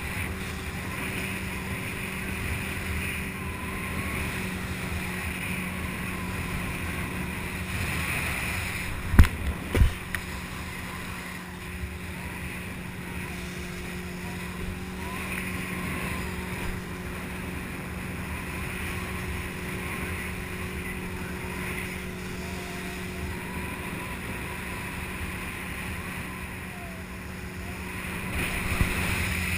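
Tow boat's engine running with a steady drone under a constant hiss of water and wind. Two sharp thumps stand out about nine and ten seconds in.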